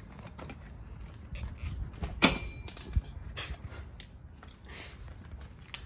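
Hand-tool and handling noises from work on a minibike's handlebar: scattered light knocks and rustles, with one sharp metallic clink that rings briefly about two seconds in.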